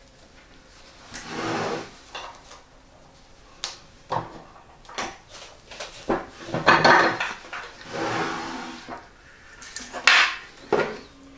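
Heavy canvas bag and its metal strap hardware being handled on a table: rustling, knocks and sharp metal clicks, with the loudest clatter a little past the middle as the green hand rivet press is worked on the strap end.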